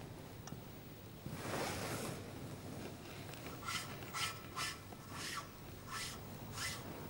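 A gilded metal paten scraped across a linen altar corporal in about six short strokes, each with a faint metallic ring: the priest gathering fragments of the Host from the cloth onto the paten. A soft rustle of cloth comes before the strokes.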